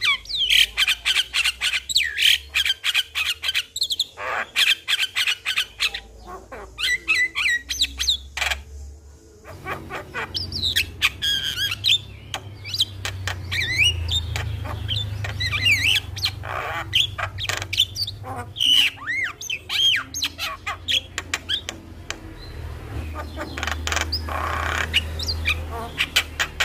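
Javan mynas (jalak kebo) calling and singing: fast runs of harsh chattering clicks mixed with rising and falling whistles, with a steady low hum underneath from about ten seconds in.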